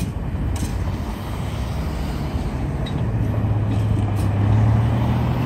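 Cars driving across a railroad grade crossing: steady road noise, with a car's low engine hum growing louder from about three seconds in as it comes over the tracks.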